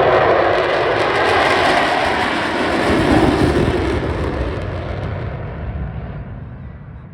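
Jet aircraft flying past, its roar loudest at first and then fading steadily as it moves away, the hiss at the top dying out last.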